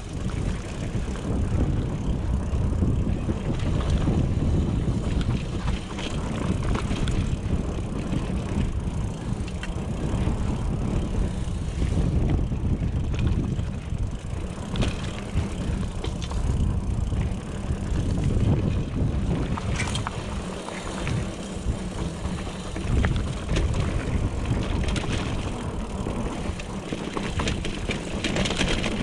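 Mountain bike descending a rough trail: wind buffeting the microphone and tyres rumbling over the ground, with frequent clicks and knocks from the bike rattling over bumps.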